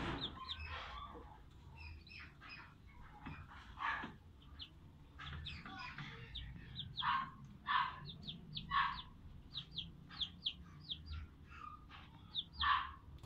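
Two-day-old ducklings peeping over and over, with many short, high, falling peeps and a few louder, harsher calls.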